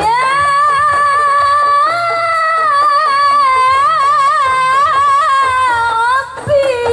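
A woman singing qasidah lead through a microphone and PA. She holds one long high note that wavers in quick ornaments midway and falls away near the end, with quiet percussion behind it.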